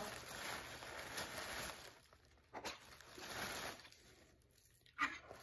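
Thin plastic takeout bag rustling and crinkling as a hand rummages in it and pulls a cup out, in uneven bursts, with a short sharp click about five seconds in.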